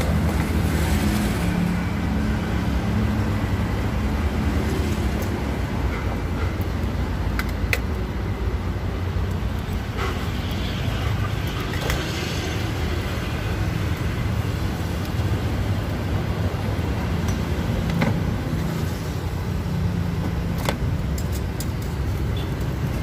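Steady low rumble of road traffic, with a few light clicks scattered through it.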